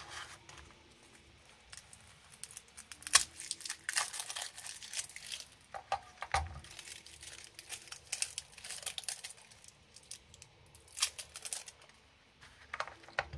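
Batteries being handled and fitted into the plastic battery compartment of a 121GW handheld multimeter: scattered clicks, taps and short scrapes, with the sharpest click about three seconds in.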